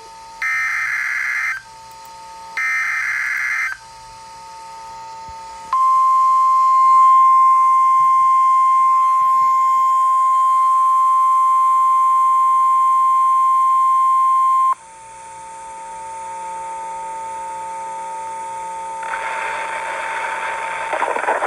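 NOAA Weather Radio Specific Area Message Encoding (SAME) test signal. Two raspy one-second digital header bursts play, then after a short pause a loud steady 1050 Hz warning alarm tone sounds for about nine seconds and cuts off suddenly. Fainter steady tones and hiss follow.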